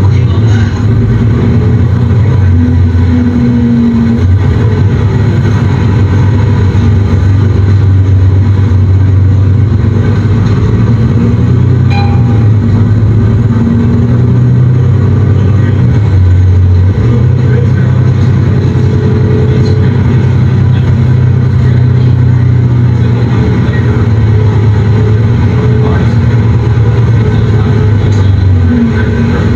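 Nova Bus LFS city transit bus heard from inside the cabin: the diesel engine and drivetrain run with a steady low drone, its pitch shifting about halfway through and again near the end as the bus changes speed.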